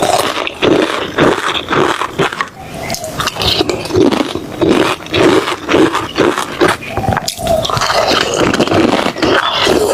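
A person eating close to the microphone: rhythmic chewing, about two chews a second, with small wet clicks between.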